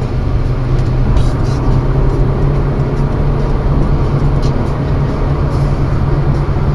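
Steady drone of a car cruising at highway speed, heard from inside the cabin: engine and tyre noise with a strong low hum.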